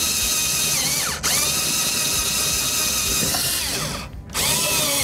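Drill-driver spinning a metal wall anchor into drywall: the motor runs in a steady whine, stops briefly about a second in, runs again with its pitch sinking as it slows near the four-second mark, then gives one short final burst near the end.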